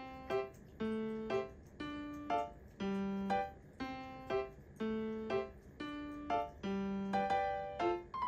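Background music: a piano-like keyboard playing a light repeating figure of short struck notes, with a low note about once a second.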